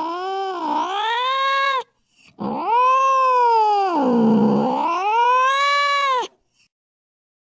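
Angry cat yowling: long drawn-out wails that sag and rise in pitch. One wail ends about two seconds in, and a second, longer one follows and breaks off sharply near six seconds.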